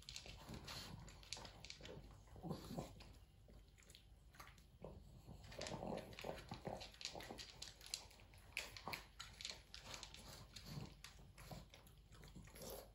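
A pug eating from its bowl: faint, irregular crunching and clicking, with snuffling from its nose.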